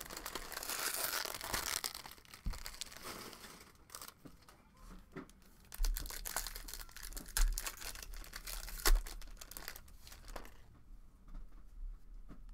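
Crinkly wrapper of a Topps baseball card pack being crumpled and torn open by hand, with many sharp crackles and a few low handling bumps; the sharpest crack comes about nine seconds in. The sound quiets near the end as the cards come out.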